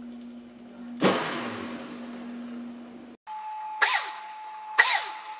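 Countertop blender motor switched on at its low speed about a second in, running as it blends mango and milk into a shake. After a cut, it runs in three short pulses, each spinning up and back down.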